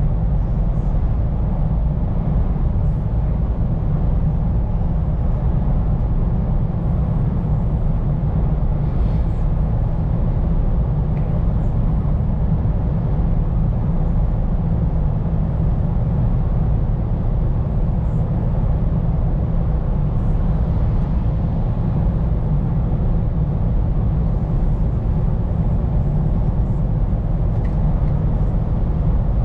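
Scania P410 truck driving along, heard from inside the cab: a steady low engine drone with road rumble, even in level throughout.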